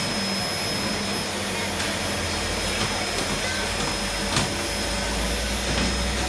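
Household vacuum cleaner running steadily: an even rushing noise with a thin steady whine. A deeper low hum comes in about five seconds in, and there is a brief knock a little before that.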